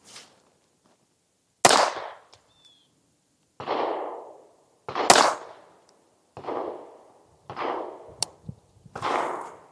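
Ruger Mark IV 22/45 Lite .22 LR pistol firing subsonic rounds one at a time: sharp cracks, the two loudest about one and a half and five seconds in, with several softer reports in between and towards the end.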